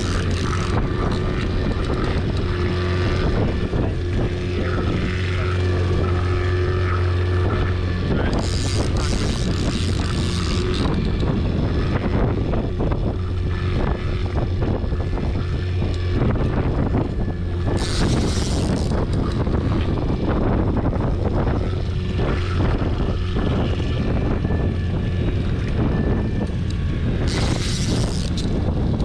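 Boat motor running steadily with a low hum, with wind on the microphone. A brief hiss rises over it about every nine seconds.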